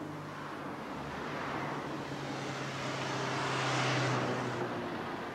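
A motor vehicle passing, its engine noise and rush swelling to a peak about four seconds in, then falling away.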